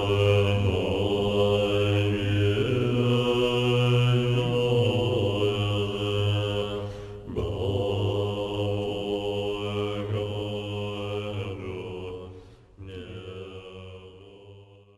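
Deep, low-pitched Tibetan Buddhist mantra chanting by a male voice, long notes held steady with brief breaks for breath about 7 and 13 seconds in, fading out near the end.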